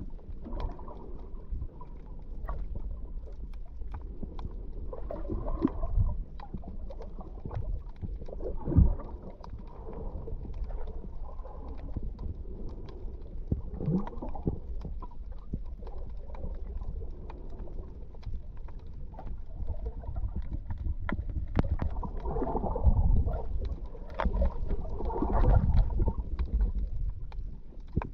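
Muffled underwater sound picked up by an action camera's microphone below the surface: a low, steady rumble of water moving against the camera, with scattered gurgles. The gurgles swell about nine seconds in and again near the end.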